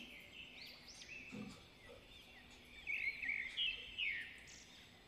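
Small birds chirping: a string of short, quick chirps, loudest about three to four seconds in.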